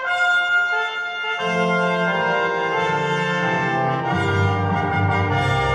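Brass ensemble playing held chords, high brass at first, with lower brass coming in after about a second and a half and a deeper bass line entering near the end.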